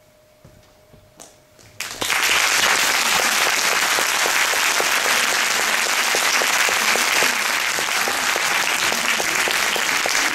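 Audience applauding. It breaks out suddenly after about two quiet seconds and then keeps up steadily.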